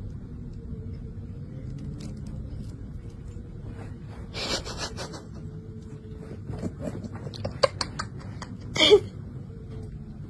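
Clear plastic bag rustling and crinkling around a hand, with scattered small clicks and two louder crinkles, one about four and a half seconds in and one about nine seconds in.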